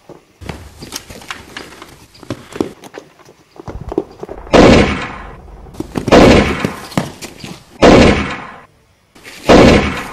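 Four loud rifle shots about a second and a half apart, each a sharp crack followed by a booming tail that dies away, after a few seconds of lighter scattered cracks.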